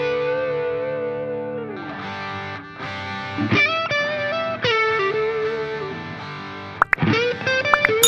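Background music: an electric guitar melody with effects, playing long held notes that waver and slide up and down in pitch, with a brief break about seven seconds in.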